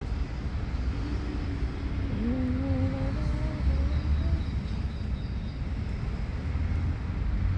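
Steady low outdoor rumble, with a distant voice for a few seconds, from about one second in, and faint high bird chirps.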